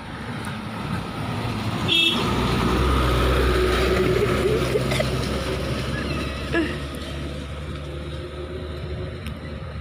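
Small pickup truck loaded with oil palm fruit bunches driving past close by on a muddy dirt road. Its engine swells to its loudest about three seconds in, then fades as it drives away. A brief sharp sound comes about two seconds in.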